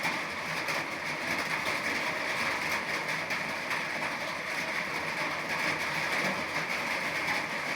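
Steady heavy rain falling, a dense even hiss of large drops.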